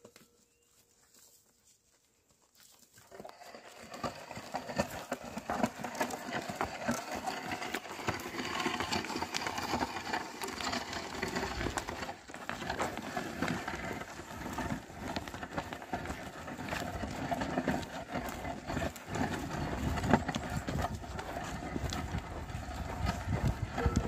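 A pair of oxen pulling a wooden plough through dry, stony soil: hooves treading and the ploughshare scraping and crunching through the earth, with many small clicks and crackles. It starts about three seconds in and keeps up steadily.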